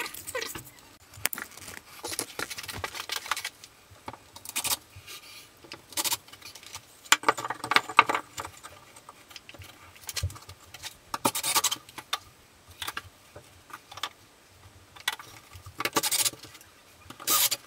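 Intermittent knocks, clatters and scrapes as a plywood shower niche box is handled and fitted into the wall opening, with short bursts from a cordless drill fastening it. The loudest bursts come about eight seconds in, near the end, and just before the end.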